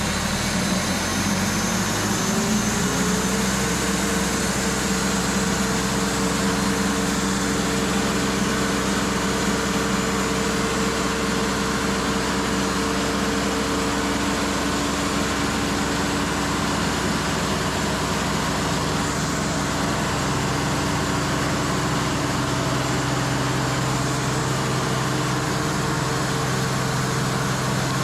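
Cook's AC-36 sawmill engine speeding up over the first few seconds, then running steadily at the higher speed.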